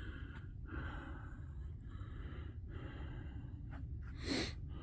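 A man breathing softly close to the microphone, a few slow breaths about a second each, with one short, louder breath about four seconds in.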